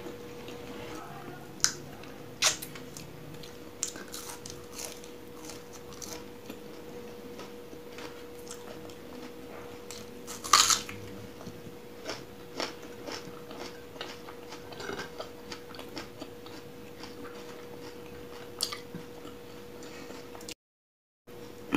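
Close-up eating sounds of rice and chicken curry eaten by hand: wet chewing and scattered mouth clicks. About halfway through comes a loud crunch as a whole raw onion is bitten into. A faint steady hum runs underneath.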